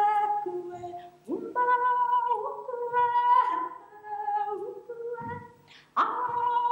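A woman singing in a high voice, holding long notes and swooping up into new ones about a second and a half in and again near the end.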